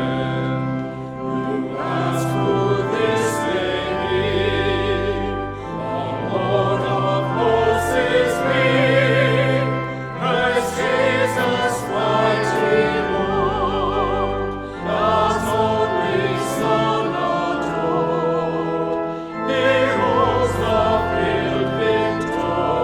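Sacred singing with vibrato, a hymn or anthem sung in phrases over sustained low accompaniment notes.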